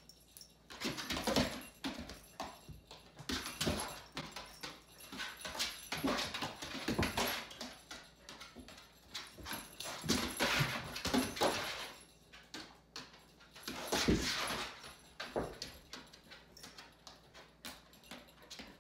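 A dog and a cat play-fighting on a hard floor: paws and claws scrabbling and clicking, with bursts of scuffling that come in repeated bouts with short lulls, dying down near the end.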